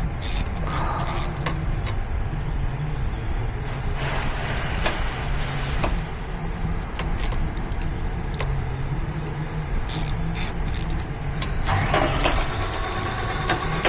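Metal tools clicking and clinking against metal over a steady low hum, with a steady whine setting in near the end.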